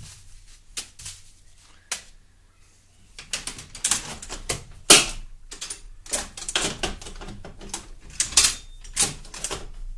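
Ammo cans being shut: a scatter of sharp clicks and knocks from the lids and latch handles. It starts with a few isolated clicks, then becomes a busy run of clatter from about three and a half seconds in.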